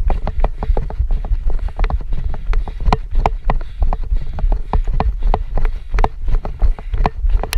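A body- or bike-mounted camera jolting along a dirt forest trail at speed: rapid, irregular knocks and rattles over a steady low rumble.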